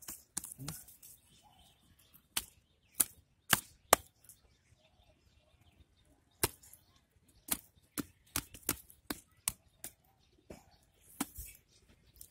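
Bare hands digging into wet mud, about twenty irregular sharp wet smacks and slaps with quiet gaps between them.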